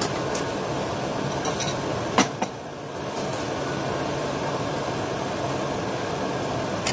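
Steady hum and hiss of a ventilation fan, with a few short crinkles and clicks from an instant-noodle packet and sauce sachet being handled; the sharpest click comes about two seconds in.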